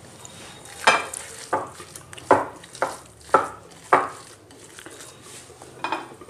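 Kitchen handling noise while kofta mixture is shaped by hand in a glass bowl and set on a plate: six sharp light knocks against the dishes about half a second apart, then one more near the end.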